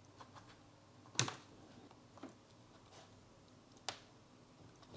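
A few small clicks and taps from handling a TFT screen circuit board and its wires on a desk, the sharpest about a second in and two fainter ones later.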